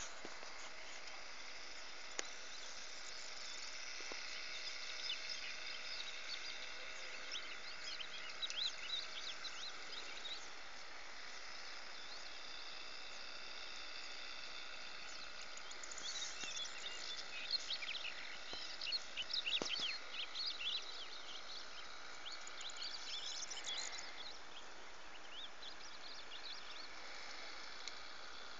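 Outdoor countryside ambience: small birds chirping in quick bursts over a steady high hiss, with the busiest chirping in the middle of the stretch and again near the end.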